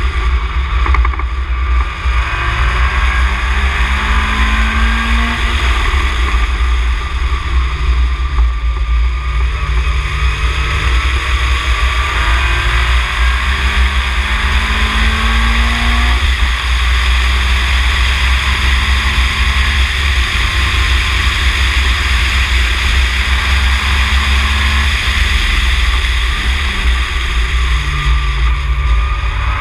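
Ginetta G20 race car's four-cylinder engine heard from the open cockpit at track speed, the revs climbing through the gears and dropping on lifts several times, under a steady heavy rush of wind on the microphone.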